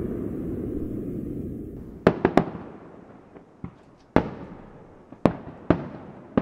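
Fireworks bursting: a fading low rumble, then sharp bangs, a quick run of three about two seconds in, and single ones about every second after that.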